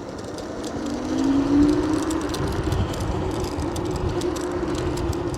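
Electric scooter hub motors whining as the scooter pulls away. The pitch rises over the first couple of seconds and then holds steady, with a low rumble underneath.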